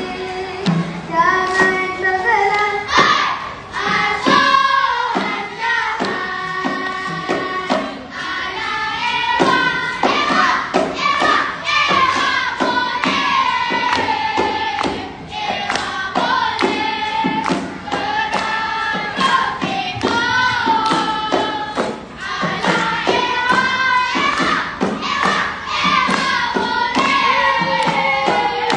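A children's group singing together in chorus while clapping their hands in a quick, steady rhythm, as part of a seated group dance.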